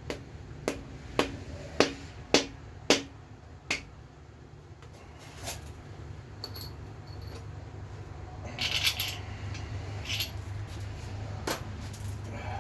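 Sharp metal taps on a main bearing cap of a GM 4.3 V6 block that has not seated straight: seven evenly spaced knocks about two a second, then a brief clatter of metal parts midway and a couple of single knocks near the end.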